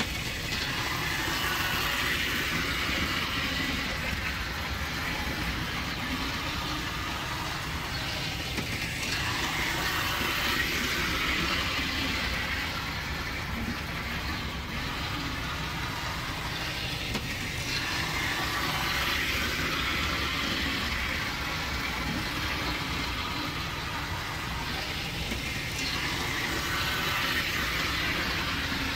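Model 0-4-0 steam locomotive and tender running on the layout's track, a steady electric motor whir with wheel rattle on the rails, swelling and fading about every eight to nine seconds.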